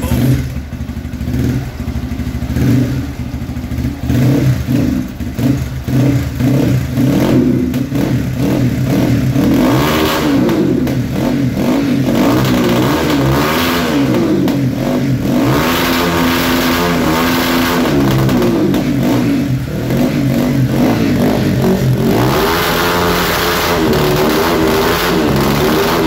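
Crossfire RM 250 dirt bike engine and exhaust running at a standstill. For the first several seconds it idles, and from about ten seconds in it is revved repeatedly, the pitch rising and falling with each blip. Near the end it is held at higher, wavering revs.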